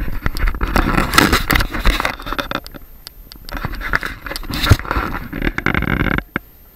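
Loud scraping and crackling of clothing or a hand rubbing against the camera's microphone while it is carried along, in irregular rushes that stop abruptly near the end.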